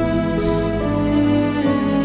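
Background music: slow, soft sustained chords with held notes that change about halfway through.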